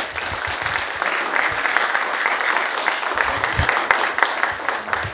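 Audience applauding: many hands clapping in a dense, steady patter that tails off near the end.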